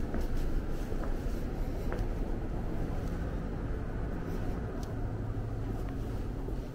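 Steady low rumble of background machinery or room noise, with a few faint clicks.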